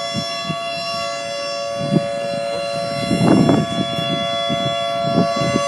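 Outdoor air-raid siren sounding a steady, unwavering tone made of several pitches at once. Low rumbling noise at the microphone comes and goes beneath it, loudest about three seconds in.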